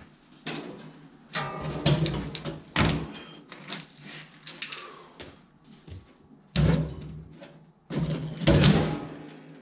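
Heavy 12-volt lead-acid batteries being set down and slid into a sheet-steel battery box. Several heavy clunks and scrapes as they knock against the metal sides and settle into place, the loudest near the middle and again near the end.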